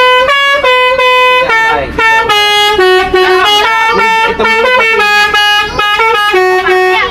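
A tour bus's 'telolet' multi-tone musical air horn playing a tune: a loud, unbroken run of held notes stepping up and down in pitch.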